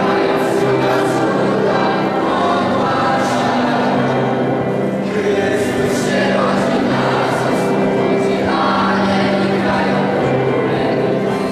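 A mixed choir of teenage boys and girls singing a Polish Christmas carol together, with steady held low notes beneath the voices.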